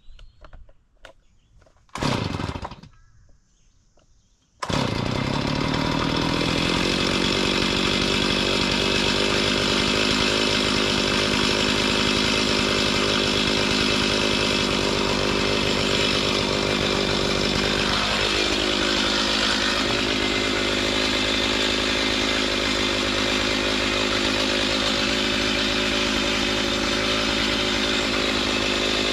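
Small gasoline engine of a lumber-milling saw starts after a brief sputter and then runs steadily at high speed, with a slight shift in its pitch about two-thirds of the way through.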